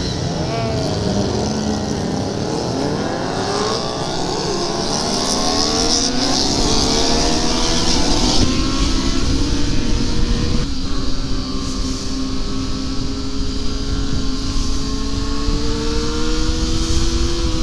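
A pack of sport-bike engines revving and accelerating away together, their pitches rising and overlapping through the gear changes. From about halfway one engine holds a steady, slowly climbing note at riding speed, under a rush of wind on the microphone.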